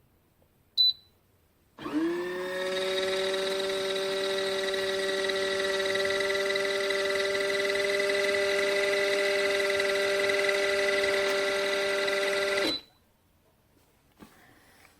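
A short sharp click, then the small electric motor of a portable folding mini washing machine spins up with a quick rising whine, runs steadily for about eleven seconds and stops suddenly.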